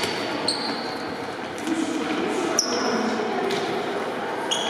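Futsal ball being kicked and bouncing on a hard sports-hall floor, a few sharp knocks about a second apart, with short high squeaks of indoor shoes on the court. Players' and spectators' voices echo in the large hall throughout.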